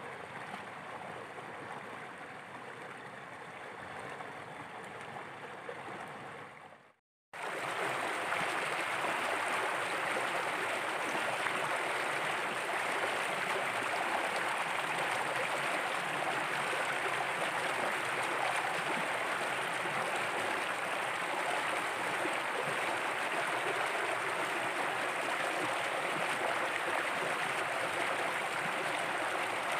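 Shallow stream running over rocks, a steady rush of water. The sound cuts out briefly about seven seconds in and comes back louder.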